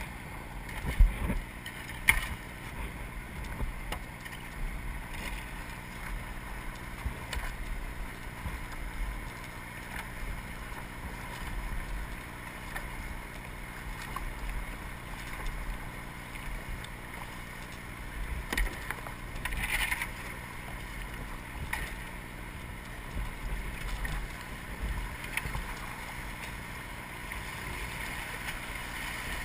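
Steady rush of moving river water around a kayak, with a few brief knocks or splashes; the loudest comes about twenty seconds in.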